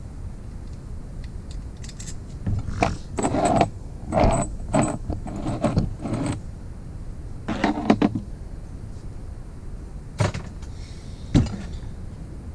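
Small metal engine parts clinking and rattling as they are handled during the teardown of a motorized-bike engine, in several quick clusters with a couple of single knocks near the end.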